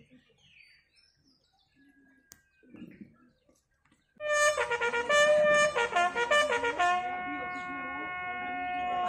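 Near quiet, then about four seconds in a brass bugle call starts: a run of short notes, then one long held note. It is the call sounded as the flag is lowered at the border retreat ceremony.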